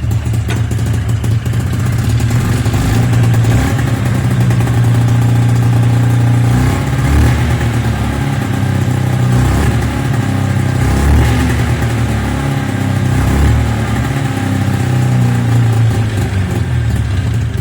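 Taiga 500 snowmobile's two-cylinder two-stroke engine running rough and sneezing on one cylinder. Its note wavers up and down a few times midway.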